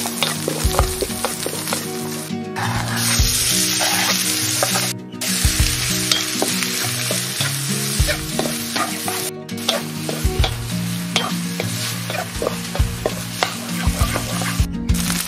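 Fried rice sizzling in a hot wok while a wooden spatula stirs and tosses it, with frequent short clicks and scrapes of the spatula against the pan. The sizzle cuts out briefly a few times.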